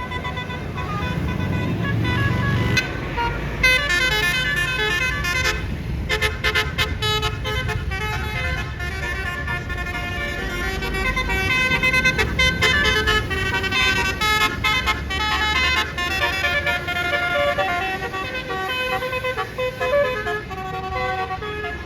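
Bus basuri telolet horn playing a melody of quick stepped notes, starting a few seconds in and running until near the end, over the low rumble of a bus engine.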